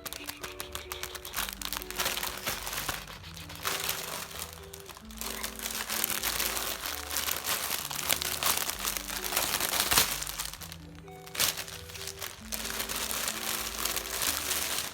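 Packaging crinkling and rustling in the hands as a packet of scrunchies is opened, with a short pause about eleven seconds in, over background music.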